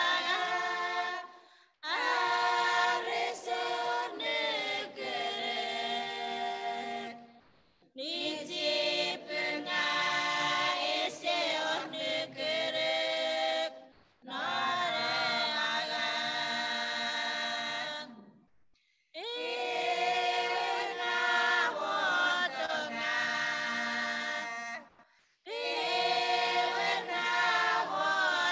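A small group of women singing a hymn together in Chuukese, unaccompanied. The singing comes in phrases of about five to six seconds, each followed by a short break.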